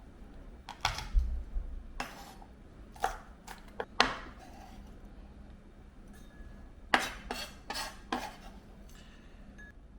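Kitchen dishes and utensils clinking and clattering. There are two clusters of sharp knocks, around one to four seconds in and again around seven to eight seconds in, and a few carry a brief metallic ring.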